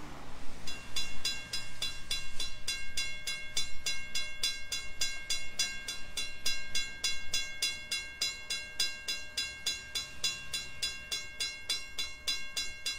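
Railroad grade-crossing warning bell ringing in rapid, evenly spaced strikes as the crossing activates and the gate arm lowers, warning of an approaching train. The ringing starts just under a second in.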